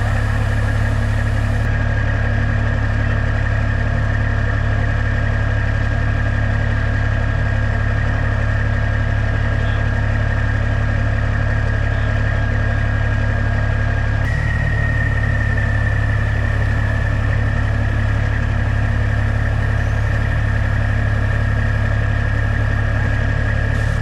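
Heavy diesel engine running steadily at an even speed: a constant low drone with a thin, steady high whine over it.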